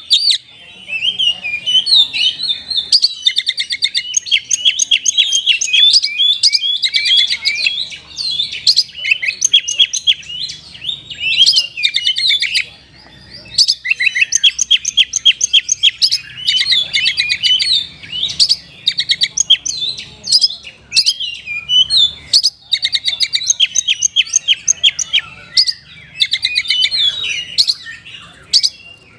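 Oriental magpie-robin (kacer) singing a long, varied song of fast trills and sharp chirps, in loud phrases broken by brief pauses. Its song is full of mimicked notes.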